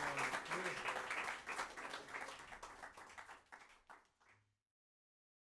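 Small audience applauding, the clapping thinning and fading out about four seconds in.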